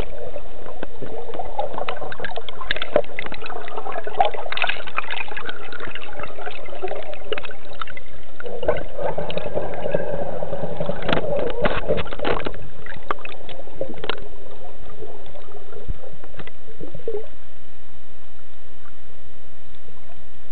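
Underwater sound heard through a camera housing: water gurgling, with many scattered clicks and knocks, busiest over the first three-quarters and settling about sixteen seconds in.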